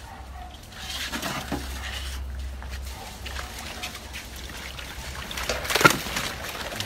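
Water splashing and sloshing in a crocodile pen, with one sharp, louder splash about six seconds in.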